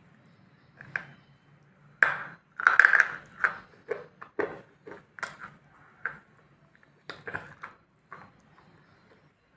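Close-up crunching bites and chewing of a hard grey block: a loud crunchy bite about two seconds in, then separate crisp crunches about twice a second that fade out near the end.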